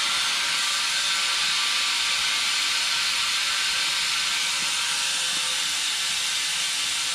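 Compressed air hissing steadily from an air hose fed into a dump truck's hydraulic oil tank at a rag-wrapped fitting, pressurizing the empty tank to find a leak in a hydraulic line.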